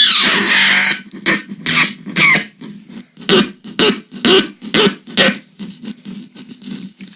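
Electric guitar played through effects for weird, noisy sounds: a loud sustained wash that cuts off about a second in, then a string of short, choppy stabs that grow fainter near the end.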